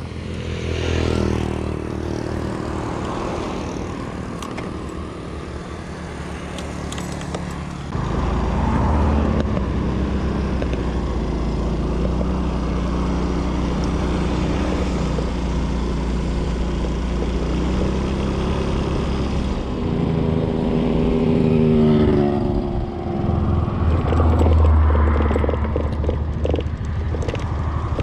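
Small motor scooter being ridden: its engine note rises and falls with the throttle, and there is a heavy rush of wind on the microphone.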